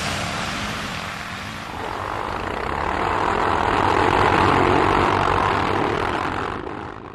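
ATV engine running, growing louder to a peak about halfway through, then easing off before the sound cuts off suddenly near the end.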